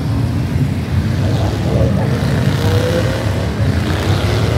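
Harley-Davidson motorcycles' V-twin engines rumbling steadily, with one engine's pitch rising around the middle as it revs up.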